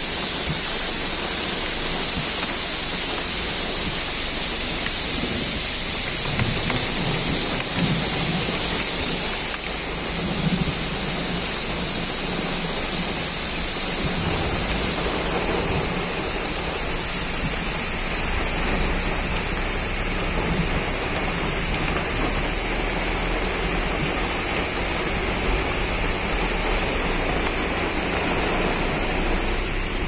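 Steady rain falling, an even hiss with a strong high-pitched edge and no breaks.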